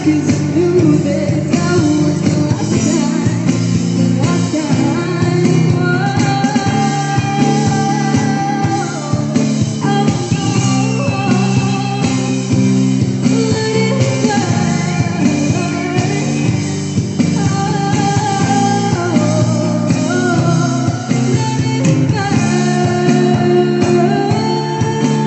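Music: a song with singing over guitar accompaniment.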